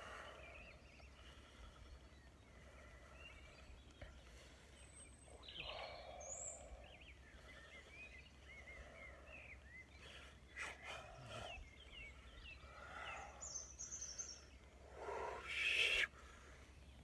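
Birds chirping and calling outdoors, with a man's occasional breathy, wordless vocal sounds; the loudest comes near the end.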